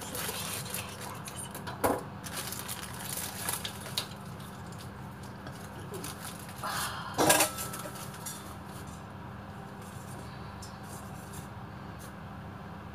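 Kitchen bowls and utensils being handled: a few scattered clinks and knocks, the loudest a short clatter about seven seconds in, over a steady low hum.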